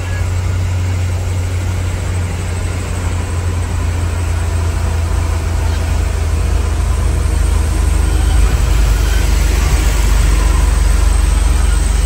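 Truck engine running with a steady low drone heard inside the cab while driving, over an even hiss of tyres on the rain-soaked road that grows a little louder in the second half.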